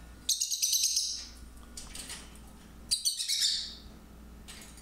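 Lovebirds calling in two short bursts of rapid, high-pitched chattering, the second about three seconds after the first.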